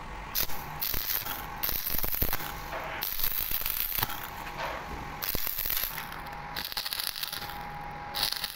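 Electric stick-welding arc crackling as a steel pipe nipple is welded to a flange, in stretches that break off and start again every second or so.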